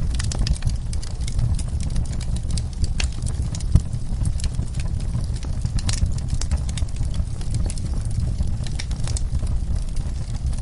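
Wood fire burning in a fireplace: a steady low rumble of flames with frequent irregular crackles and pops of burning wood.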